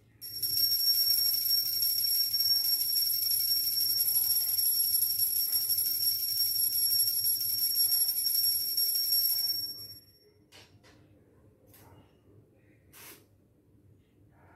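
A small brass hand bell rung continuously for the aarti, a steady high bright ringing that stops suddenly about ten seconds in; a few faint clicks follow.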